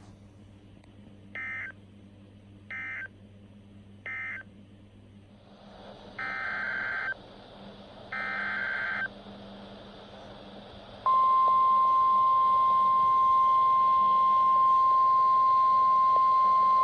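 NOAA Weather Radio alert data and alarm: three short warbling data bursts (the end-of-message code of the warning just read), then two longer data bursts of the next alert's header. About 11 seconds in, the steady 1050 Hz weather radio warning alarm tone starts and holds, loud and unbroken.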